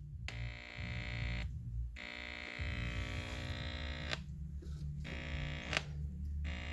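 Steady electrical buzz with many even overtones from a 1969 Zenith portable tube TV switched on just after its filter capacitor was replaced, dropping out briefly three or four times.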